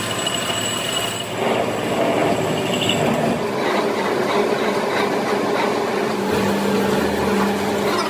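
Metal lathe running while machining a brake rotor: a steady machine noise with some ringing tones, which grows louder about a second and a half in.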